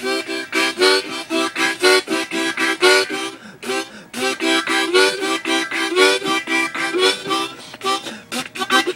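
Harmonica played in a fast run of short, chopped chords, about four a second, with a couple of brief pauses.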